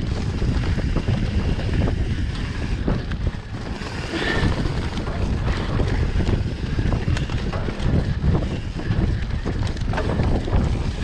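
Enduro dirt bike being ridden, its engine running under heavy wind buffeting on the microphone, with scattered knocks from the bike over rough ground.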